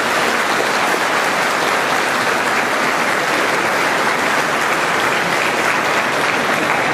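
Large audience applauding steadily, many hands clapping without a break.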